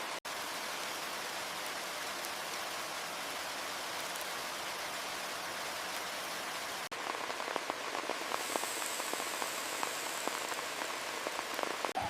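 Heavy rain falling as a steady dense hiss. After a short break about seven seconds in, individual drops patter and tick on a surface over the rain.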